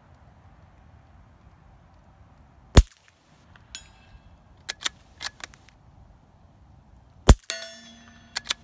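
Two suppressed .22LR shots from a bolt-action Ruger American rifle fitted with a GSL Pill Box wipe-type suppressor, each a sharp crack, about four and a half seconds apart. The suppressor is past 90 rounds, beyond the roughly 50 rounds at which its wipes are meant to be replaced. A short metallic ring follows each shot, and a run of clicks between the shots is the bolt being worked.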